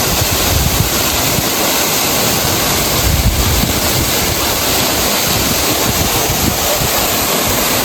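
Waterfall pouring: a loud, steady rush of falling water, with wind buffeting the microphone in low, uneven gusts.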